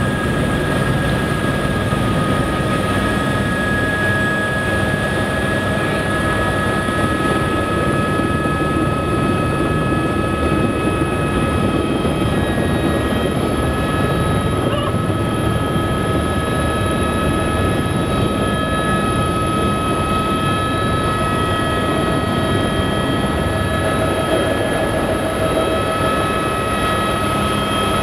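Turbine helicopter running, heard from inside the cabin: a steady high turbine whine over the dense rotor and engine noise as it lifts off and climbs.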